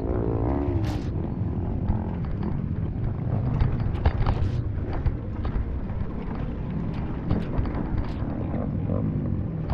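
Dirt bike engine running under varying throttle over a rough trail, its pitch rising and falling near the start, with many short knocks and rattles from the bike over the rough ground.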